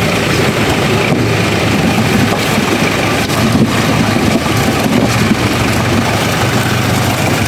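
Off-road 4x4's engine running steadily under way, with road and wind noise and a few light knocks about one and three and a half seconds in.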